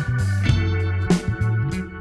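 Background music: a funky instrumental with organ, guitar and bass over a steady beat.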